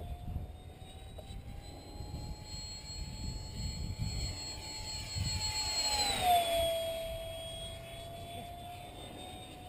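Whine of the 70 mm electric ducted fan on a radio-controlled Me 163 Komet model making a fast pass. The steady high whine rises slightly in pitch as it comes in, is loudest about six seconds in, then drops in pitch as the plane goes by.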